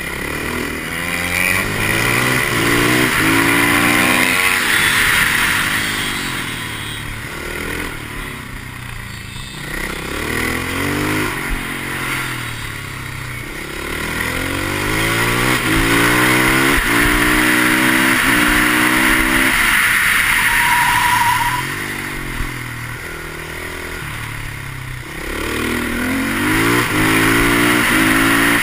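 Husqvarna 510 SMR supermoto's single-cylinder four-stroke engine revving hard on repeated accelerations, its pitch climbing and then dropping at each gear change or when the throttle is shut for a corner, over wind rush.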